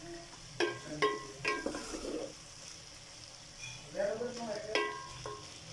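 A spatula stirring minced meat, bitter gourd and peas in a metal pan, clinking and scraping against the pan several times, over a steady sizzle of the mix frying in oil.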